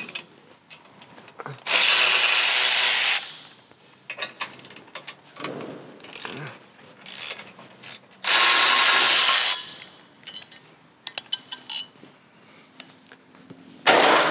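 A cordless power ratchet or driver with a 14 mm socket runs in two steady bursts of about a second and a half, undoing bolts, with a shorter burst near the end. Clicks and knocks of the socket and loosened parts come in between.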